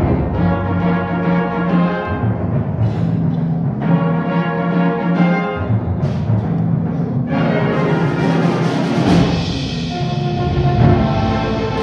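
High school concert band playing sustained brass and woodwind chords that shift every second or two. The full band grows brighter and fuller from about seven seconds in.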